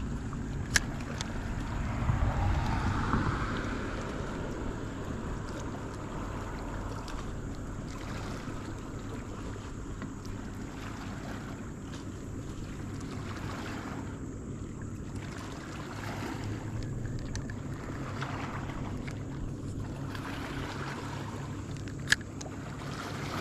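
Small waves lapping at a boat and light wind on the microphone, over a faint steady low hum, with a louder rush of noise about two seconds in. A sharp click sounds near the start and another near the end.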